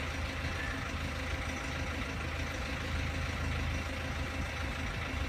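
Engine idling: a steady low mechanical hum with a faint steady tone above it, unchanging throughout.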